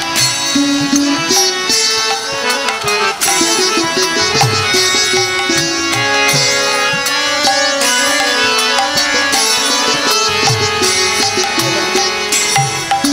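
Kirtan music: a harmonium plays a sustained melody over a mridanga (two-headed clay drum) beating a steady rhythm of low strokes, with bright metallic strokes from small hand cymbals.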